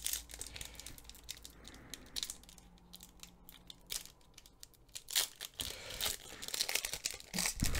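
A trading-card booster pack's wrapper crinkling and being torn open, with cards rustling as they are handled. It comes as a run of small crackles, busier about five seconds in and again near the end.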